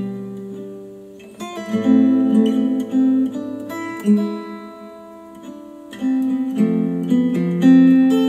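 Acoustic guitar music played back through KEF R3 bookshelf speakers powered by a NAD C 388 integrated amplifier: strummed chords that ring and fade, with a fresh strum every second or two.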